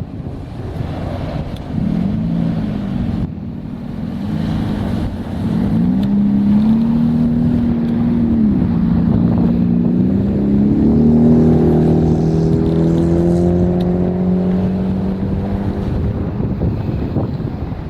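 Ontario Northland train's locomotive air horn blowing: two short blasts, then one long held blast with several notes sounding together, the pitch dropping partway through, over the low rumble of the passing train.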